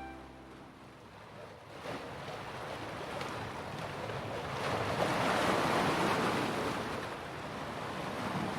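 Ocean surf washing in: a rushing noise that builds for a few seconds, peaks midway, then eases off.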